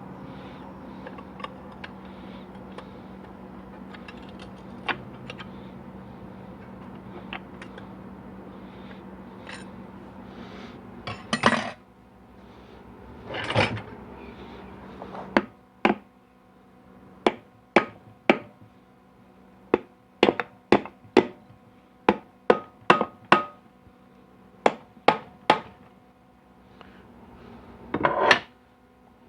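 Hand tools knocking and clinking against the metal of a 4L80E transmission being assembled, with about fifteen sharp separate strikes over the second half and a few longer scraping or rattling noises in between.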